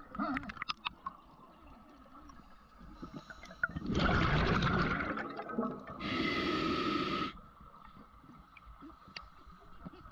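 Scuba diver breathing through a regulator underwater: a loud rush of exhaled bubbles about four seconds in, then a hissing inhale through the regulator just after. Faint clicks and a thin steady tone lie underneath.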